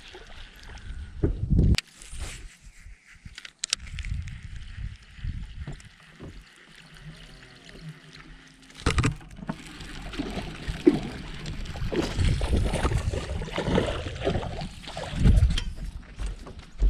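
Water sloshing and lapping against a fishing boat, with uneven low rumble and a few sharp knocks. The sound is quieter for a few seconds early on and picks up again about nine seconds in.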